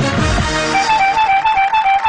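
Background music: a melody that rocks quickly back and forth between two notes, over low sweeping booms.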